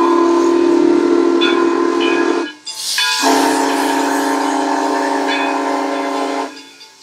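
Steam whistle of the Edison, a replica of a Mason-built Civil War-era steam locomotive, blown in two long steady blasts with a short break between them, the signal to proceed as it gets underway. Steam hisses from the open cylinder cocks, loudest in the gap between the blasts.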